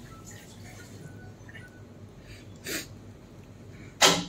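Faint small clicks of an Allen key turning a screw in a chrome basin mixer handle, with a short noise burst about two and a half seconds in and a louder, sharp one near the end.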